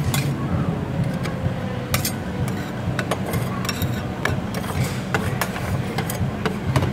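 Two metal spatulas chopping nuts on the steel cold plate of a fried (rolled) ice cream stand: irregular sharp metal taps and scrapes over a steady low hum.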